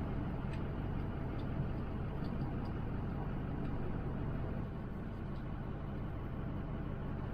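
Motorhome on the move: steady engine and road noise with a low hum.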